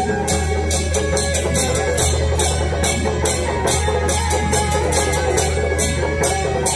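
Loud festival music: drums and percussion strike a fast, steady beat of about four strokes a second under a melody line and a low steady drone.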